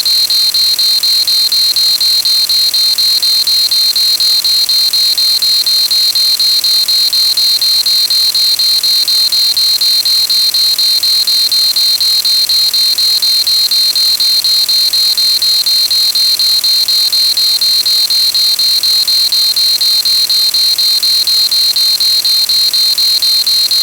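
A loud, steady, high-pitched electronic buzzer tone, held unbroken for over twenty seconds, cuts off abruptly at the end.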